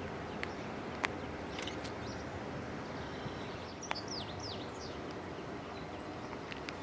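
Outdoor ambience: a steady rushing background noise, with a quick series of three or four falling bird chirps about four seconds in and a few faint clicks.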